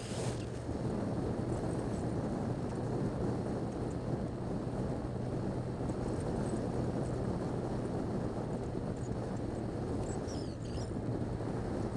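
Yamaha XJ6 Diversion's 600 cc inline-four engine running steadily at cruising speed, mixed with wind and road noise from riding on a wet street.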